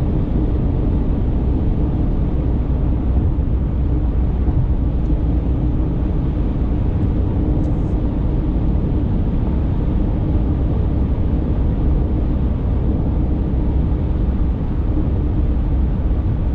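Steady road and engine noise inside the cabin of a car moving at highway speed.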